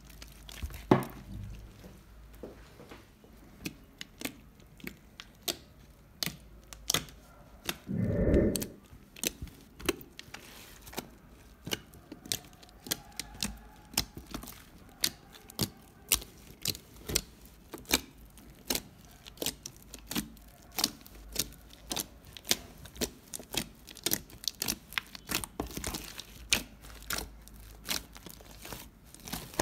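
Homemade slime being kneaded and stretched by hand in a plastic tub as borax activator is worked in: a run of sticky clicks and pops, several a second, with one dull thump about eight seconds in.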